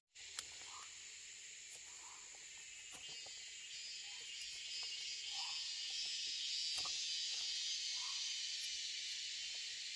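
A dense, steady chorus of insects, a high shrill hum that swells slightly around the middle, after a brief cut in the sound right at the start.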